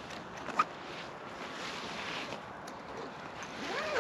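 Steady rushing outdoor noise like wind, swelling a little in the middle, with a single light click about half a second in and a brief rising-and-falling pitched sound near the end.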